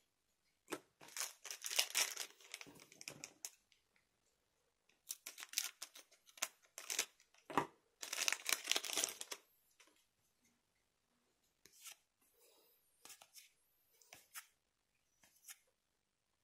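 Foil Weiß Schwarz trading-card booster pack being opened: three bursts of crinkling and tearing in the first ten seconds. After that, softer scattered clicks and rustles of the cards being handled.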